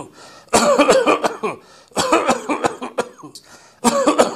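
Recorded human coughing in repeated fits: one about half a second in, another at two seconds, and a third starting near the end, each a short run of several sharp coughs. It is the kind of cough presented as pointing to asthma.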